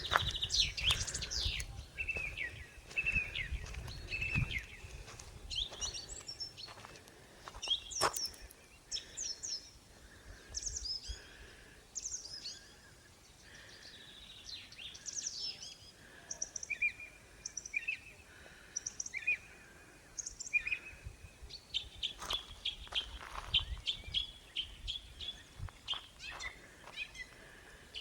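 Songbirds chirping and calling with many short, quick notes throughout. A low rumble fills the first few seconds, and a sharp click sounds about eight seconds in.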